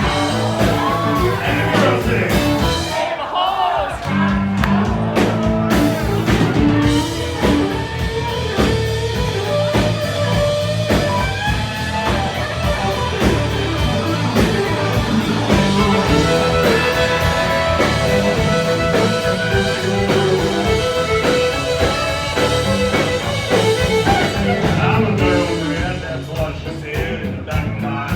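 Live band playing a country-rock song with a lead singer, guitar and a steady drum beat.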